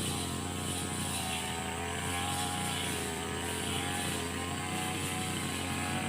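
Small engine running steadily at a high, even speed, its pitch wavering slightly.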